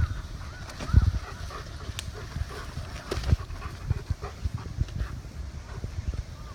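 Bernese Mountain Dog panting, with frequent low thumps and faint short chirping calls throughout.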